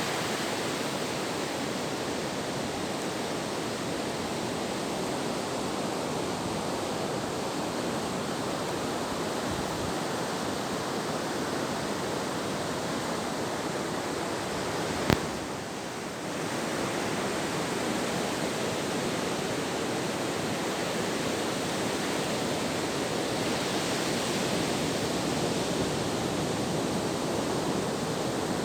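Steady rush of ocean surf breaking on a sandy beach, with a single sharp click about halfway through.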